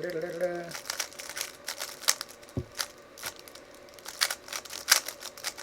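A 3x3 Rubik's Cube being turned quickly by hand during a solve: a fast, irregular run of sharp plastic clicks and clacks as the layers snap round.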